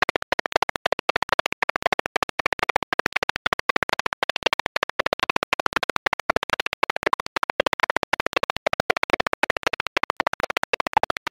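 Music for a cheerleading routine, cut by very short gaps of silence many times a second so that it stutters.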